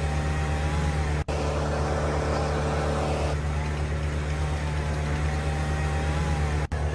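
A large engine running steadily, a low unchanging drone. The sound cuts out for an instant twice, about a second in and near the end.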